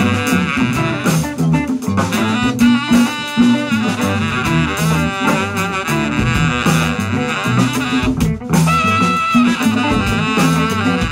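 Live jazz band: a saxophone playing a sustained, wavering melodic line over a drum kit with cymbals, with low notes stepping underneath.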